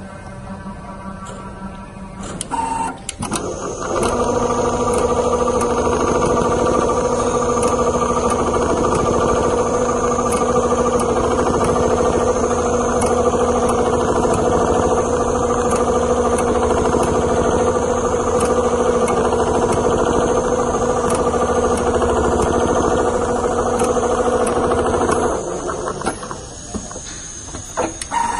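Richpeace CNC quilting sewing machine running as it stitches leather: a steady mechanical whine that rises sharply about four seconds in, holds level, then drops back to a quieter hum near the end.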